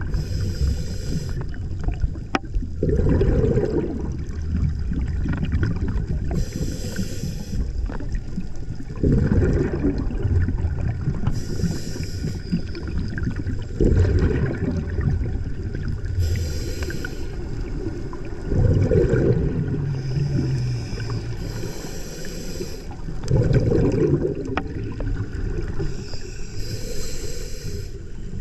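Scuba diver breathing through a regulator underwater: a short hissing inhale followed by a longer bubbling exhale, repeating about every five seconds.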